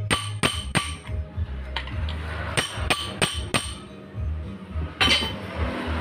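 Sharp metal-on-metal strikes with a ringing tone as a tool is worked on a scooter's dual centrifugal clutch during reassembly: three in about a second at the start, then four more a couple of seconds later. A louder clatter of metal parts about five seconds in.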